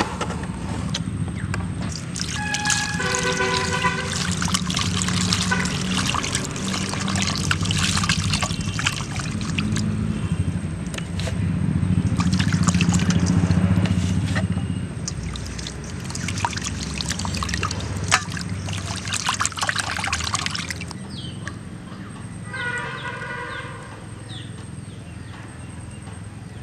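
Water splashing and trickling in a stainless steel bowl as flour-coated pieces of fish are rinsed by hand. It dies down about 21 seconds in. A short pitched call sounds twice, about three seconds in and near the end.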